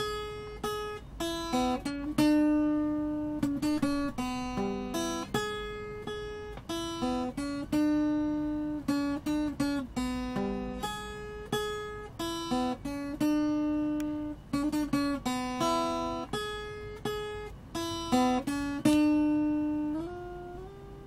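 Music: a solo acoustic guitar picking a slow melody, single notes and chords ringing out and dying away one after another.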